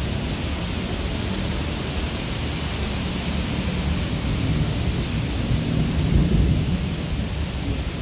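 Steady rain hissing on a wet city street, with a low rumble swelling about five seconds in.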